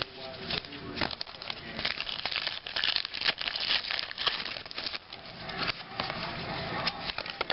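Crinkling and tearing of a trading-card pack wrapper being opened and the cards handled, an irregular run of crackles and rustles.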